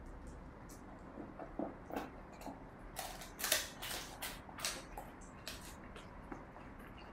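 A dog eating from a plastic food bowl: irregular chewing clicks and mouth smacks, busiest and loudest around the middle.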